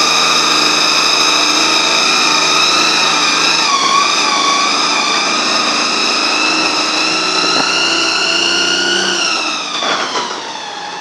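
Terex TA30 articulated dump truck driving past with a loud high-pitched whine over its engine. The whine dips briefly about four seconds in, then falls in pitch and fades near the end as the truck moves away.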